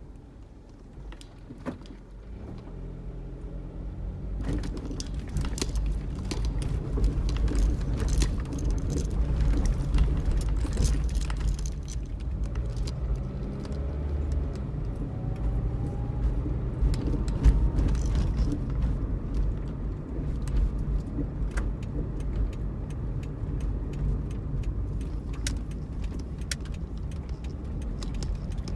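Inside a Pontiac Vibe on the move: engine and road noise, quieter at first and then growing louder from about four seconds in as the car gets up to speed. Small rattling clicks run throughout.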